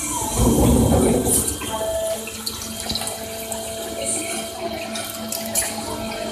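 CNC lathe machining with coolant splashing steadily, over a steady machine hum and scattered light clicks.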